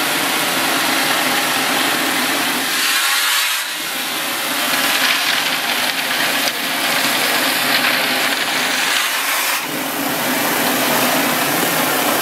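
Shotcrete spraying from a hose nozzle: a loud, steady hiss of compressed air and concrete, with an engine running underneath, likely the pump or compressor. The hiss shifts in strength a few times as the spray is worked across the mesh.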